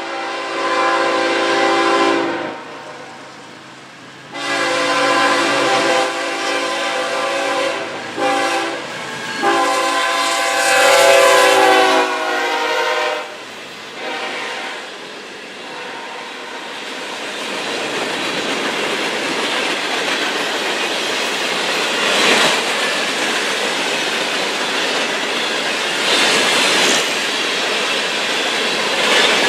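Diesel freight locomotive's air horn sounding the grade-crossing signal: long, long, short, long. The train then passes, with steady wheel and rail noise and clickety-clack over the rail joints.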